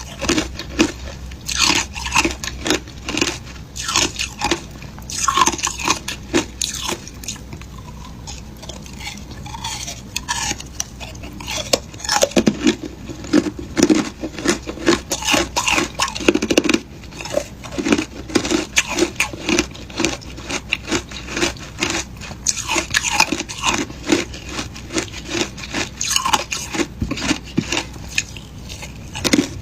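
Close-up crunching and chewing of frozen passion fruit shaved ice, rapid crisp bites and grinding chews, along with clinks and scrapes of a utensil against the dish. The crunching eases off for a few seconds about a third of the way in, then picks up again.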